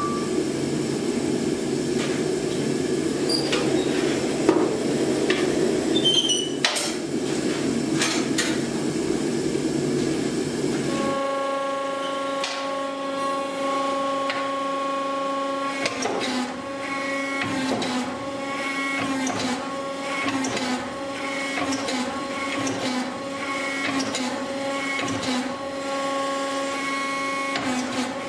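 A gas forge's burner runs with a steady rushing noise, then stops abruptly about eleven seconds in. A power hammer follows: its motor hums steadily, and from about sixteen seconds in its dies strike repeatedly on a hot bar of air-hardening H13-type tool steel.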